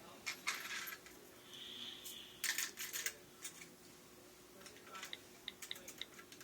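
Pennies clinking and clattering against the plastic bricks of a homemade Lego coin machine, in a few short bursts of clicks.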